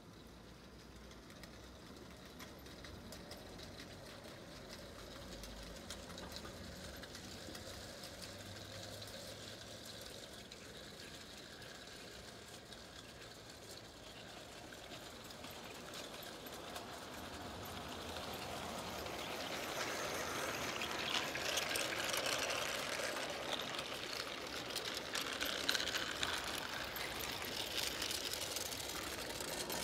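O gauge model train running on a garden track, its wheels rattling and clicking over the rails. It grows steadily louder as it approaches and passes close by, then cuts off abruptly at the end.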